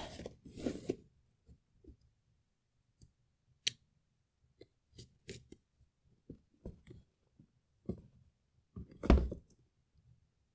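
Scattered clicks, taps and rustles of a small packaging box being handled and opened by hand, with a louder knock about nine seconds in.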